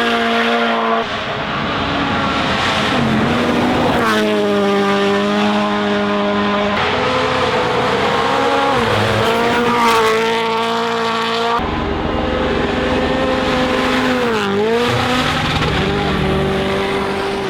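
Rally1 cars at full speed, their turbocharged 1.6-litre four-cylinder engines running at high revs and rising and falling in pitch through gear changes and lifts. The sound changes abruptly every few seconds as one take gives way to another.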